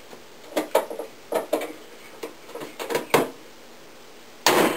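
A car hood being closed: a series of light clicks and knocks as the hood is handled and lowered, then one loud thud near the end as it is pushed down and latches shut.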